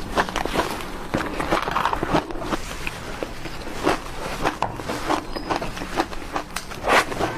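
Close-up chewing of crushed ice: a dense, irregular run of sharp crunches and crackles, several a second, with a loud crunch about seven seconds in.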